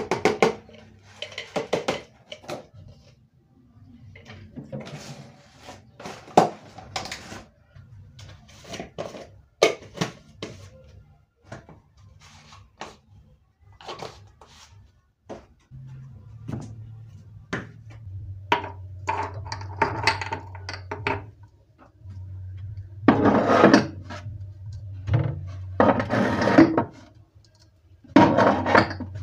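Kitchen items being handled and put away: scattered knocks and clinks of dishes and utensils set down, with a few longer scraping or rustling passes near the end. A low steady hum comes in about halfway.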